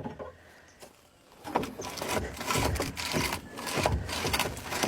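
Clunks, rattles and scrapes of an old excavator's metal control linkage being worked by hand, starting after a quiet second and a half. The linkage moves, showing it is free rather than seized.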